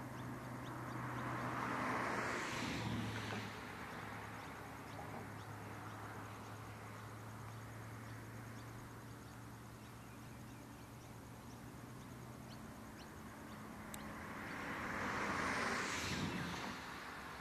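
Low steady drone of a distant diesel locomotive hauling a coal train, with two whooshes that swell and fade, about two seconds in and near the end, louder than the drone.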